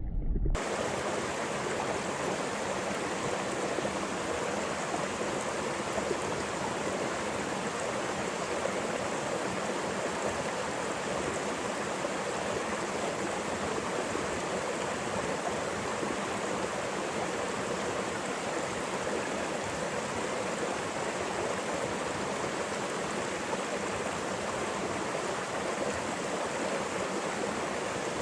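Mountain stream rushing, a steady even wash of running water with no change throughout.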